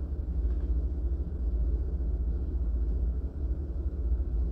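Steady low rumble and hiss of distant ocean surf.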